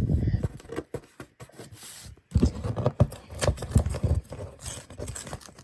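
Paper envelope being handled and torn at by hand, with irregular rustling and scraping that is heaviest just after the start and again about halfway through.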